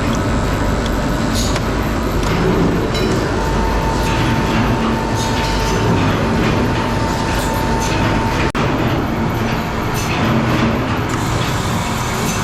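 Loud, steady rumbling machine noise with a thin whine in the middle, broken by a sudden cut about eight and a half seconds in.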